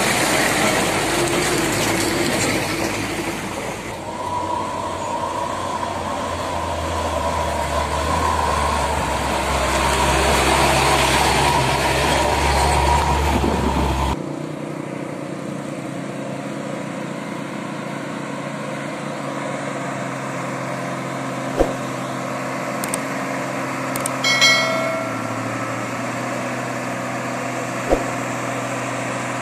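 Heavy diesel truck engines. First a Mitsubishi Fuso log truck runs loudly as it passes close by. After a sudden cut comes a quieter, steady engine drone from a heavy truck on the muddy slope.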